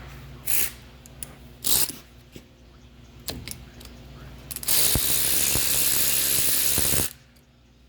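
Tool work on a car's front brake caliper: a few sharp metallic clicks, then a loud, steady rasping hiss for about two seconds that cuts off abruptly.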